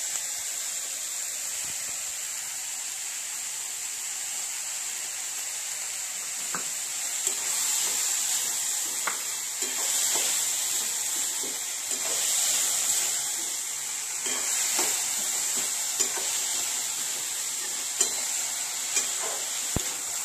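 Chopped onion, capsicum, tomato and cucumber sizzling in a metal kadai while a spatula stirs and scrapes them. A steady frying hiss grows louder for a while in the middle, with scattered clicks of the spatula against the pan.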